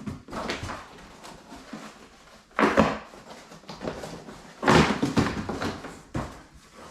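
Cardboard shipping box being cut and pulled open by hand, with two louder rasping bursts of cardboard and packing material, the second longer, and quieter rustling and handling between.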